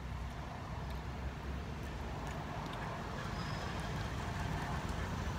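Steady low rumble of a motor vehicle's engine on the road, growing slightly louder in the second half.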